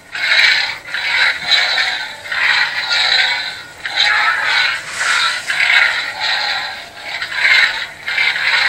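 Hasbro Black Series Force FX Kylo Ren lightsaber's sound effects from its built-in speaker: a rough electronic hum that swells into a swing sound each time the blade is waved, rising and falling about twice a second.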